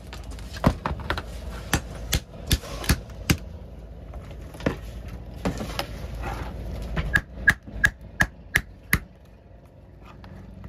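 Hammer blows cracking open a large sea shell to get at its meat: a series of sharp knocks, about two a second, with a short pause partway through. A quicker run of brighter, ringing knocks comes near the end.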